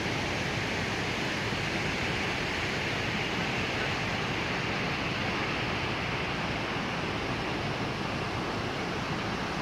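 Steady rushing of a fast mountain river, a constant hiss of water with no change or break.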